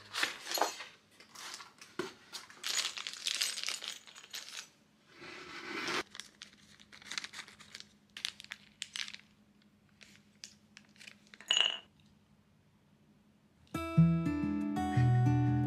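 Handling sounds of a flat-pack pine furniture kit being unpacked: cardboard and paper rustling and scraping, with knocks of wooden boards. Then a plastic bag of metal screws and wooden dowels crinkles, with sharp clicks as the screws clink. Acoustic guitar music comes in near the end.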